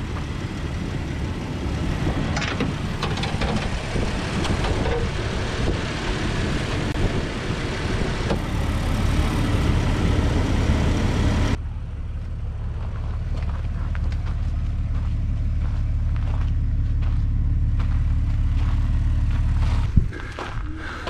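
Jeep Wrangler TJ Rubicon's 4.0-litre straight-six idling with the hood open. About halfway through, the sound changes abruptly to a steadier, deeper rumble.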